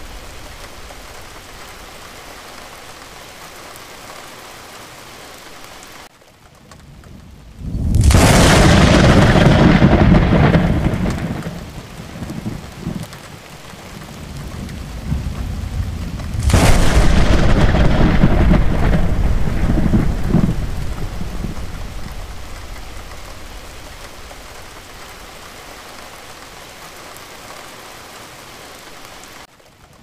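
Steady rain with two loud claps of thunder, one about eight seconds in and another about sixteen seconds in. Each rumbles on and dies away over several seconds. The rain cuts out for a moment just before the first clap and again near the end.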